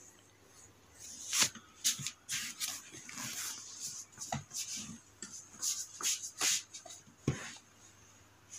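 Screwdriver tightening small screws in plastic modular switches on a switch plate: a run of short scratchy scrapes and small clicks of the blade and the plastic being handled, with a sharper knock about seven seconds in.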